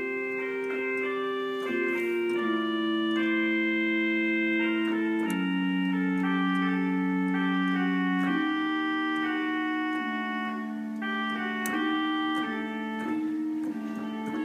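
Five-manual Fratelli Ruffatti pipe organ playing slow, sustained chords, the held notes shifting every second or two, with a lower note held for about three seconds in the middle.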